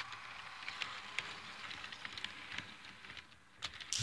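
HO-scale model freight cars rolling past on sectional track: a steady metallic hiss of wheels on rail, broken by irregular small clicks. It fades after about three seconds, with a few more clicks near the end.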